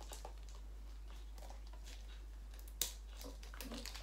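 A small cardboard box being handled and opened by hand: faint rustles and taps, with one sharp click about three seconds in.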